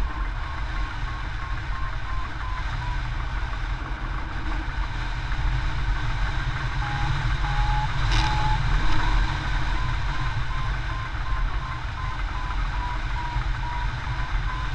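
Flight variometer beeping in a quick run of short tones at one pitch, which drops a little with longer beeps around the middle before returning, over a steady rush of airflow on the microphone of a hang glider in flight. A louder gust of wind noise comes about eight seconds in.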